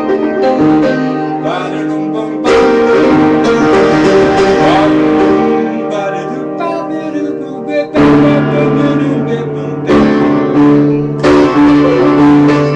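Upright piano being played: full chords struck firmly every few seconds over held low bass notes.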